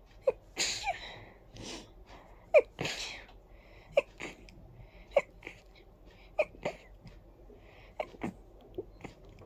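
A person's stifled sneezes in a long fit: about a dozen short, held-in sneezes, roughly one a second, some followed by a brief breathy puff. The sharpest comes about a quarter of the way in.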